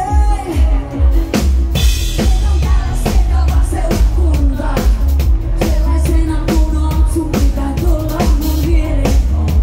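Live pop music played loud through a club PA: a woman singing into a microphone over a steady, pounding kick-drum beat, heavy bass and drums.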